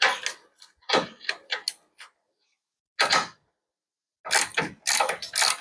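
Hand ratchet wrench clicking in a series of short rasping strokes, working a ball joint stud nut loose on the lower A-arm, with the stud kept from spinning by weight on the A-arm.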